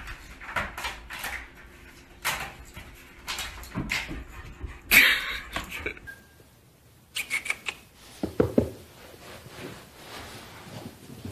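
Knocks and rattles of a puppy climbing on a plastic baby gate, several separate strokes with the loudest about five seconds in. After a short lull come a few more clicks and some low thumps.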